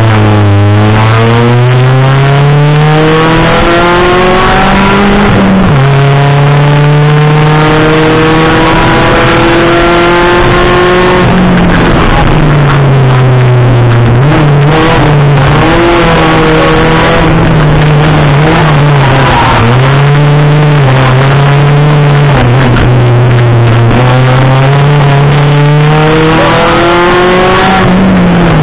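Rally car engine heard from inside the cabin, running loud at full throttle. The revs climb with two sharp gear upshifts in the first twelve seconds, then rise and fall repeatedly through the middle as the car lifts and accelerates again, and climb once more near the end.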